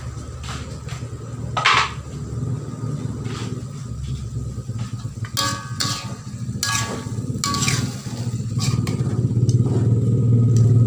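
A spatula scraping and clinking against a wok while stir-frying chicken, with food sizzling in the pan. The clinks come in scattered clusters, a few ringing briefly, over a steady low hum that grows louder near the end.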